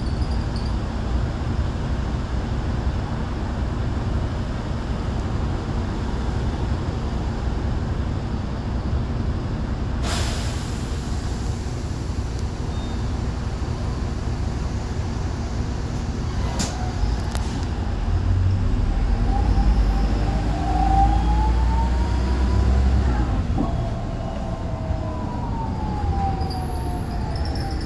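Optare Solo midibus heard from inside its cabin: the engine runs steadily while stationary, with a sudden sharp sound about ten seconds in. From about two-thirds of the way through the engine grows louder as the bus pulls away, with a whine that rises and falls in pitch as it gathers speed.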